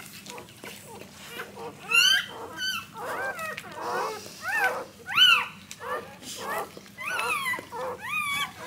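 Newborn golden retriever cross puppies squealing: a run of short, high cries that rise and fall in pitch, about two a second.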